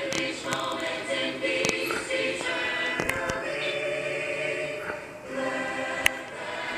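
Choir singing long held notes, playing from a television, with a few brief sharp clicks, the sharpest about six seconds in.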